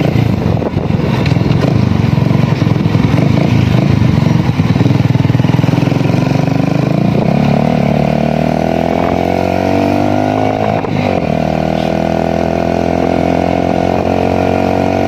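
Motorcycle engine running on the move with heavy wind noise on the microphone. About seven seconds in the engine note comes through clearly and rises as the bike speeds up, dips briefly around eleven seconds, then holds steady.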